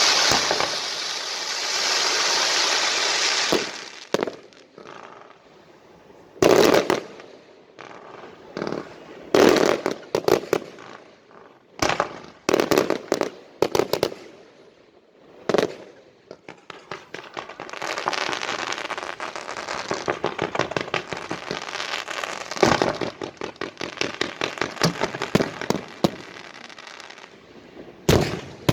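Fireworks going off. A dense crackle dies away about four seconds in, then comes a string of separate bangs. From about 18 to 26 seconds a long run of fast crackling follows, in line with a spinning wind-fire wheel firework, and one more bang comes near the end.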